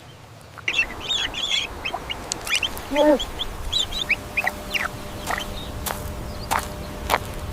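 A clutch of waterfowl chicks peeping in many short, high chirps, with one lower, honk-like call from an adult bird about three seconds in.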